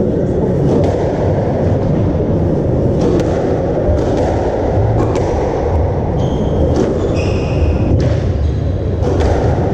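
Squash rally: a series of sharp knocks as the ball is struck by the racquets and smacks off the court walls, with short high squeaks of shoes on the wooden floor in the second half, over a steady low hall rumble.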